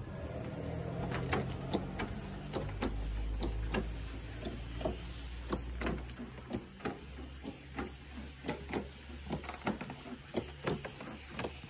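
Battery-powered backpack sprayer's pump whirring while the wand sprays the limestone paving. A series of sharp ticks comes about two to three times a second throughout, and the low hum eases off around the middle.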